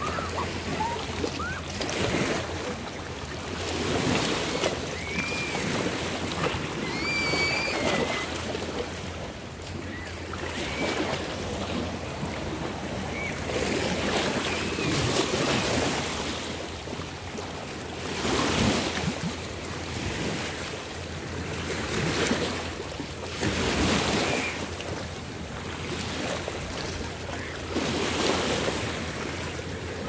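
Small bay waves lapping and washing at the shore, the wash swelling and easing every couple of seconds.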